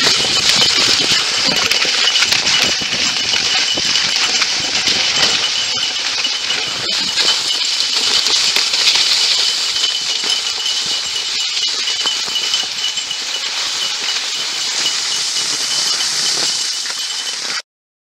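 Kicksled runners hissing and scraping over snow as dogs pull the sled along, with a constant fine rattle and clink from the moving sled. It cuts off abruptly near the end.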